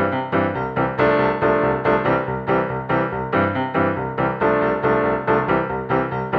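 Background music: a keyboard tune with notes struck at an even, steady rhythm.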